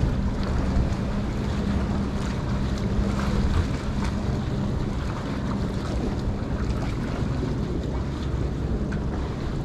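A boat's engine running with a steady low hum, under wind buffeting the microphone and the wash of water.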